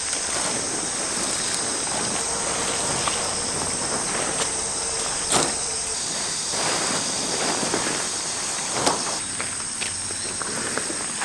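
Steady high-pitched chorus of summer insects, with a few scattered rustles and knocks as a tent sheet is flipped over on gravel.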